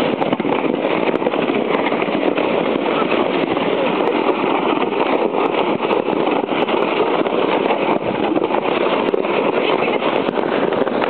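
Steady scraping rush of a sled's runners sliding over snow as a horse pulls it along.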